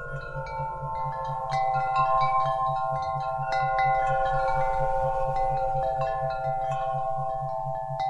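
Wind chimes ringing: many overlapping struck metal tones that sustain and blend. Beneath them a low tone pulses steadily: an isochronic tone for meditation.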